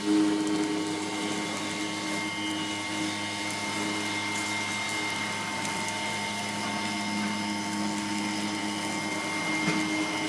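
CNC router running as it carves: a steady whine from the spindle over a lower drone from its motors.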